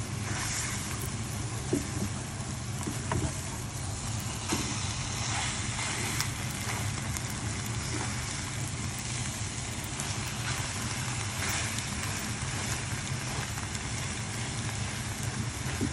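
Eggs and eggplant frying in a pan, sizzling steadily, with a few light clicks of a plastic spatula against the pan in the first few seconds, over a steady low hum.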